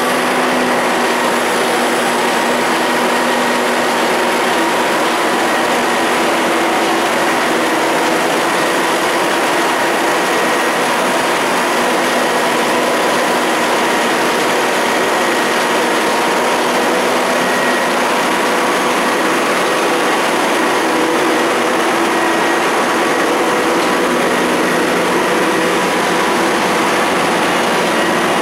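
Detroit Diesel 125 diesel generator set running at a steady speed: a loud, even drone with a few steady humming tones that does not change.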